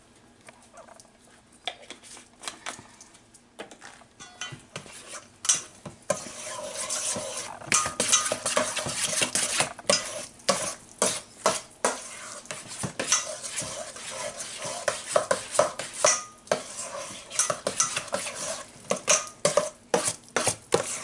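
A metal spoon stirring thick ricotta filling in a stainless steel mixing bowl, scraping and clinking against the bowl in quick repeated strokes. The strokes come sparsely at first and turn brisk and steady about six seconds in.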